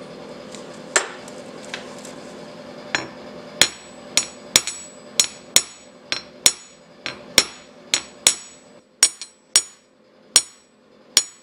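Ball-peen hammer tapping small chunks of 50% silver solder flat on a steel railroad-track anvil: about fifteen sharp metallic strikes, each with a short high ring, at about one or two a second from a few seconds in. Before them come a couple of sharp clicks from side cutters snipping off the solder.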